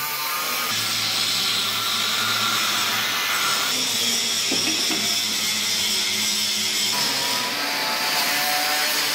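Angle grinders cutting and grinding steel on the underside of a barge hull as the old cooling pipes are cut away. A continuous harsh grinding with a wavering whine, changing abruptly a few times.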